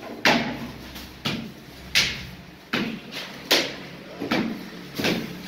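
Vertical form-fill-seal salt packing machine cycling, giving a sharp clank with a short ring about every three-quarters of a second as its sealing and cutting jaws close on the film, seven times.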